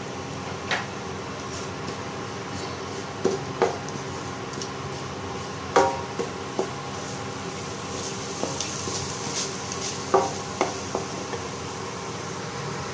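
A spatula stirring and scraping minced pork and curry paste as it dry-fries in a pan, with sharp irregular knocks of the spatula against the pan. A steady hum runs underneath.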